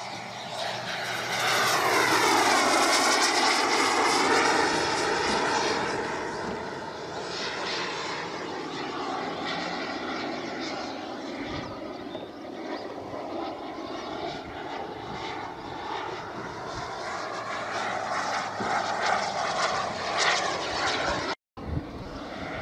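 Radio-controlled scale model L-39 Albatros jet flying past with a steady engine whine. It is loudest a couple of seconds in, where the pitch falls as the model passes close, and it then keeps on somewhat quieter as the jet flies on.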